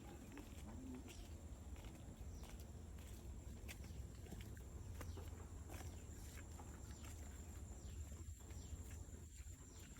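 Faint outdoor ambience: a steady low rumble, a thin steady high tone and scattered light clicks.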